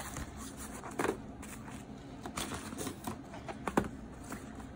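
Small plastic jars of nail glitter being handled and turned in gloved hands: a few light plastic clicks and taps, with soft rustling of the gloves.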